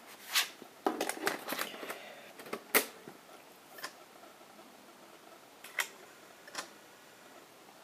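A 3.5-inch floppy disk being pushed into the Sony Mavica FD90's built-in floppy drive: a run of clicks and rattles, ending in the loudest click near three seconds in as the disk seats. The drive then reads the disk, with three more single clicks spread over the next few seconds.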